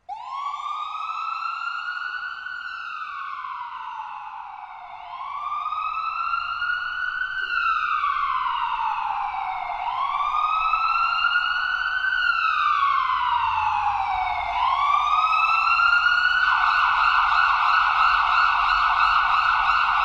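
Fire truck's electronic siren sounding a slow wail, rising and falling in pitch about every five seconds, four times over, then switching near the end to a fast warble.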